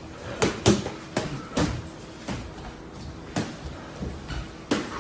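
Boxing gloves smacking against gloves, headgear and body in a sparring exchange: a quick double hit about half a second in, then single sharp punches landing about once a second.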